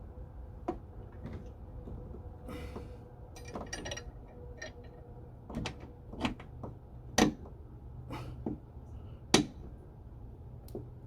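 Scattered clicks and knocks of tools and metal car parts being handled, two sharp knocks the loudest, over a low steady hum.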